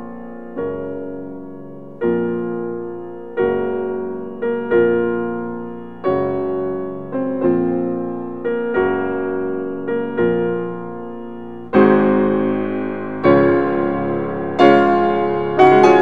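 Background piano music: slow chords, each struck and left to fade, growing fuller and louder about twelve seconds in.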